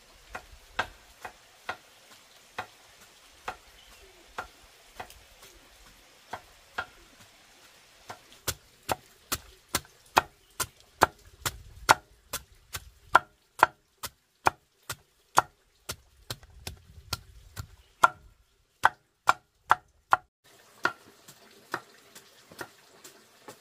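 A knife or cleaver chopping on a wooden board. The strikes are sharp and spaced at first, then become a steady run of about two a second, with a brief pause and a few more strikes near the end.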